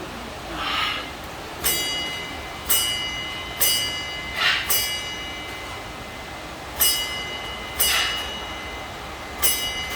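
A macaw ringing a small bell one strike at a time, counting out the number seven. The strikes are about a second apart, with a longer pause in the middle, and each leaves a short ringing tone.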